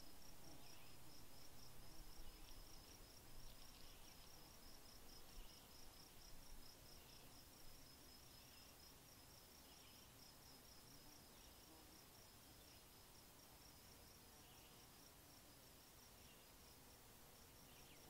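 Faint insect chirping: a steady, rapid, high-pitched pulsing at several pulses a second, with softer chirps every second or two. A low rumble underneath dies down about halfway through.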